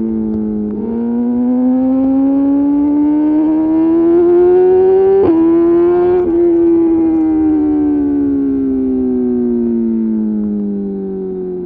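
2021 BMW S1000RR inline-four running through an Austin Racing GP1R full exhaust with titanium pipe. The engine note climbs steadily as the bike accelerates hard, with a gear change about a second in and again around five seconds in, then falls steadily as it slows.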